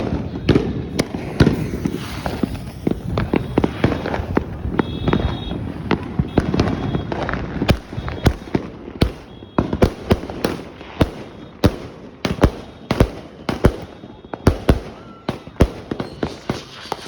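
A 'Mad as a March Hare' 100-shot firework cake firing a barrage of sharp shots. The shots come densely at first, then settle into a steady run of about two a second from about eight seconds in.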